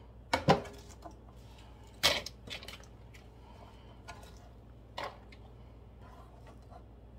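Kitchen knife chopping onion on a plastic cutting board: a few sharp knocks in the first couple of seconds, then a few fainter taps as the onion pieces are scooped off the board into a plastic bowl.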